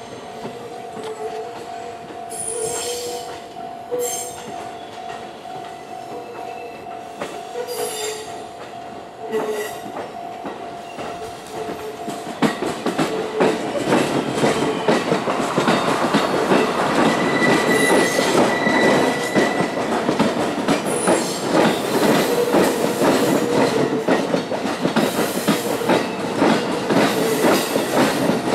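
JR West 223 series electric multiple unit running slowly over depot pointwork. Its wheels give several short high squeals on the curves, and about twelve seconds in the sound grows louder into a rapid clatter of wheels over rail joints and points as the cars pass close by, with one more drawn-out squeal in the middle of it.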